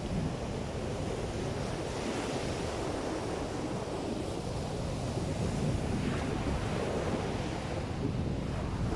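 Ocean surf breaking and washing up the beach, with strong wind buffeting the microphone as a steady low rumble.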